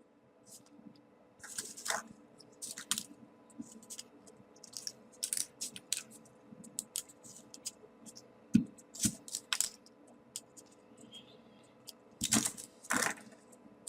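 Small folded paper units of a 3D origami model being handled and slotted together: irregular light paper crinkles and clicks, with two low knocks close together past the middle.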